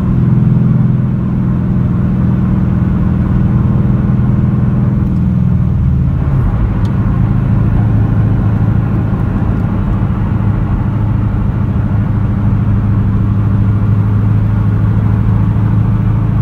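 V8 engine of a 2007 Saleen Parnelli Jones Mustang running steadily under way, heard from inside the cabin. About six seconds in, the engine note drops to a lower pitch and then holds steady.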